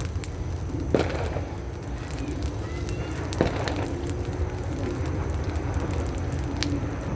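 Firecrackers and fireworks going off at New Year: sharp bangs about a second in, a little past the middle and near the end, over a steady rumble of the surroundings.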